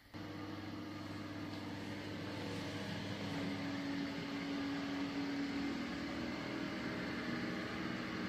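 A ventilation fan running with a steady hum and a whooshing noise. It starts abruptly and grows a little louder after about three seconds.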